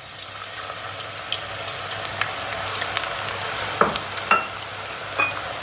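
Diced carrots deep-frying in hot oil in a pot: a steady sizzling hiss that builds as they go in, with a few sharp clicks after the middle.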